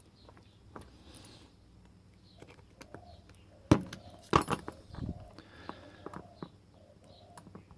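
Small metal lock wafers clicking and tapping as they are handled and fitted into the chambers of a Whitco cylinder 4 lock plug. Scattered light clicks, with one sharp click a little before halfway and a quick run of clicks just after it.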